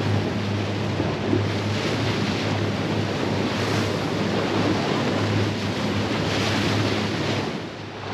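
Boat running on open sea: wind buffeting the microphone over the rush of water, with a steady low engine hum underneath. The noise dips briefly just before the end.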